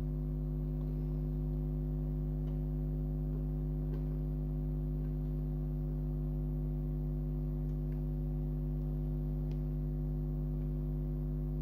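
Steady electrical mains hum, a low buzz with several overtones, with a few faint small ticks scattered through it.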